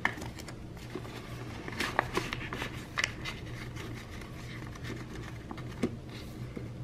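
Paper dollar bills and a clear plastic binder envelope being handled: soft rustling and crinkling with scattered light clicks and taps.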